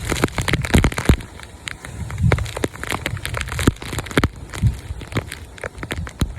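Hurricane wind gusting against the microphone in bursts of low rumble, with many sharp crackling ticks throughout, as of rain and debris striking it.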